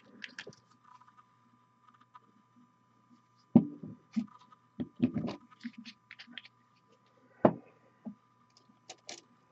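Scattered sharp clicks and knocks of painting supplies being handled on a hobby desk, the loudest about three and a half and seven and a half seconds in, over a faint steady hum.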